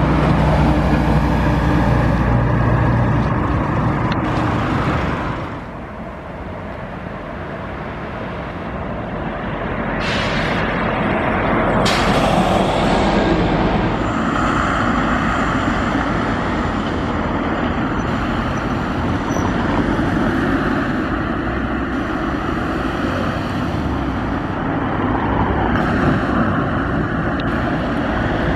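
Alfa Localo city buses on Volvo B7RLE chassis driving past, their diesel engines running and pulling away. The sound drops off for a few seconds and then builds again as another bus approaches. There is a short hiss of air about ten seconds in and another about twelve seconds in.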